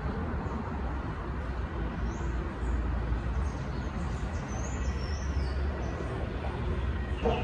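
Outdoor background noise: a steady low rumble with faint, short high chirps over it, and one short sharp click near the end.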